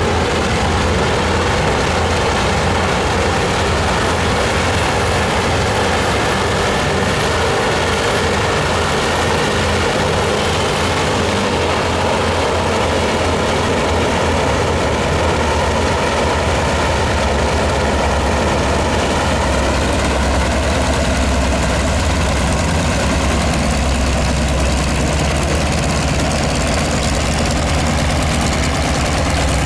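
Three Pratt & Whitney R-1340 Wasp nine-cylinder radial engines of a Junkers Ju 52/3m running steadily at idle, propellers turning.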